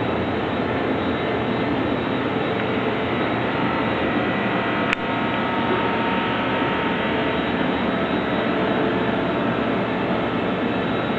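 CNC plasma cutter running, its torch giving a steady hiss with faint whining tones, broken by one sharp click about five seconds in.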